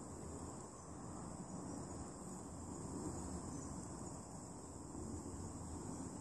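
Steady, unbroken high-pitched chorus of insects in the surrounding woods, with a low, uneven rumble underneath.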